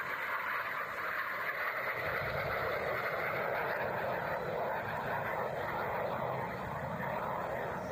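Jet noise from a BAE Hawk T1 of the Red Arrows, with its Rolls-Royce Adour turbofan, flying past: a steady rushing sound, with a deeper rumble joining about two seconds in.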